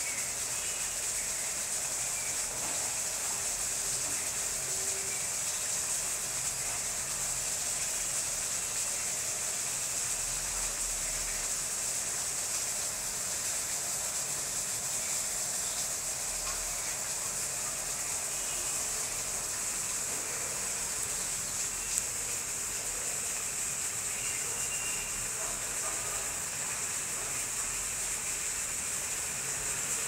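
A steady, high-pitched hiss of background noise, with one sharp click about two-thirds of the way through.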